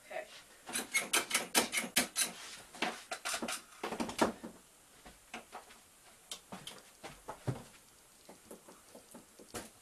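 Rapid clicking and tapping as buttons and small props on a cardboard tabletop console are pressed at random. A quick run of clicks comes in the first couple of seconds, then scattered taps.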